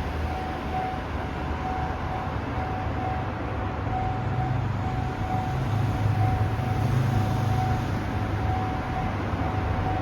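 Japanese level-crossing alarm ringing with an evenly repeating single tone. Under it, the low rumble of a Keihan Keishin Line train grows louder around the middle as it runs past the crossing.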